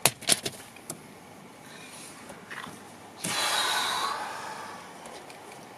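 A few sharp clicks and knocks of handling near the start, then a man's heavy sigh, a loud breathy exhale of about a second that fades out.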